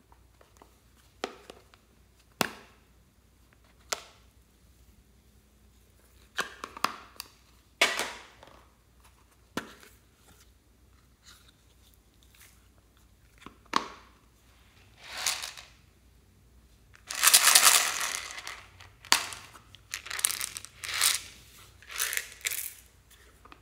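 Small plastic cases clicking open and being handled, then small plastic beads poured out and rattling into a glass tray of slime. Sharp single clicks come in the first few seconds, then longer rattling bursts, the loudest a little past the middle.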